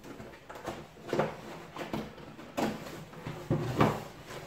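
Long cardboard box being opened by hand: several short scrapes and rubs of cardboard as the lid slides off and the flaps are folded open.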